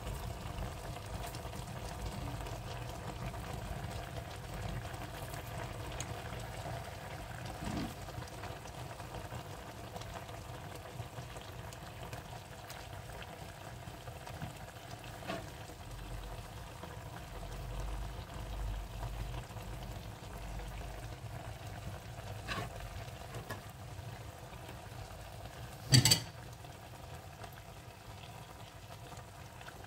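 Low, steady simmer and hum from a stainless steel pot of chicken and vegetables on the hob, with a few light taps as onion and herbs drop in and one sharp knock near the end.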